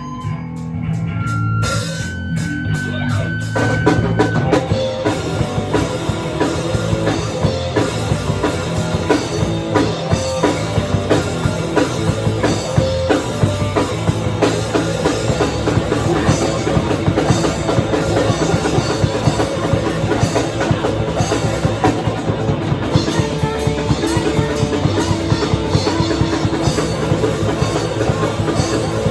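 Live rock band playing, with drum kit, electric guitar and bass. The opening is thinner, with held notes over the bass, and the full band with fast, dense drumming comes in about four seconds in.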